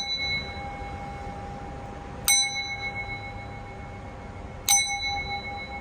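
Sound bowl (singing bowl) ringing on with a steady tone, then struck twice more, about two seconds in and again nearly five seconds in. Each strike is a bright metallic ding that rings on.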